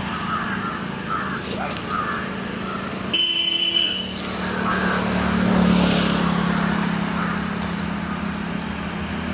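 Road traffic: a motor vehicle's engine hum swells to a peak about halfway through and fades, with a short high beep about three seconds in.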